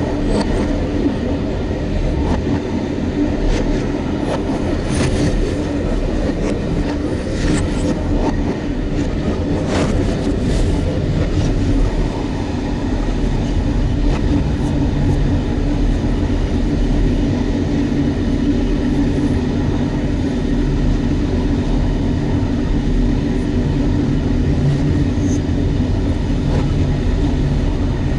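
A train running steadily, heard from the driver's cab: a continuous rumble and hum of the running gear, with a series of sharp knocks and clicks during roughly the first ten seconds as the wheels pass over points, then an even run.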